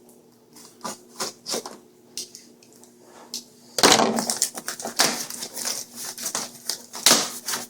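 Packaging being handled as soundbar accessories are taken out of the box: a few light taps and clicks, then from about four seconds in, louder continuous crinkling and rustling.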